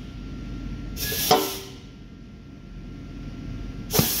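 Pneumatic bag agitators on a bulk bag unloader's support dish cycling: a sharp knock and a short hiss of compressed air, twice, about a second in and again near the end, as the agitator strokes and lifts or drops the neoprene skirt.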